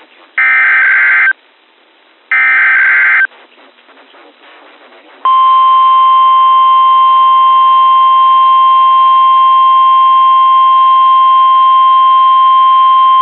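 NOAA Weather Radio SAME alert header: two one-second bursts of warbling data tones about a second apart, then, about five seconds in, the steady 1050 Hz weather radio warning alert tone. Together they open the weekly test of the hazardous weather warning system.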